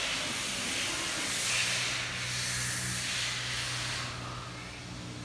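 A broad hiss that swells and then eases off about four seconds in, with a low steady hum coming in about a second in.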